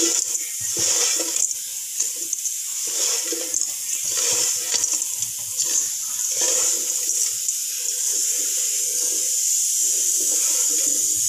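Steady hiss of hot oil sizzling in a frying pan. In the first half it comes with soft irregular rustling of fried okra being tossed by hand in a steel bowl.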